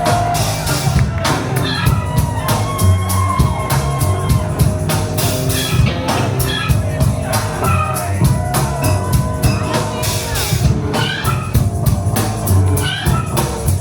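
Rock band playing live with no vocals: a heavy, repeating bass line over a steady drum-kit beat, with pitched instrumental figures on top.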